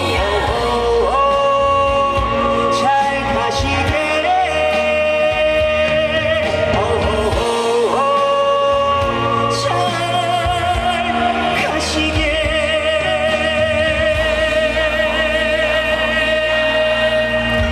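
Male vocalist singing a slow trot ballad live over band accompaniment, holding long notes, with a wavering vibrato in the last few seconds.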